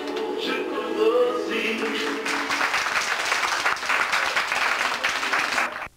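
A song with singing plays and ends about two seconds in, followed by an audience of children clapping steadily, which cuts off suddenly near the end.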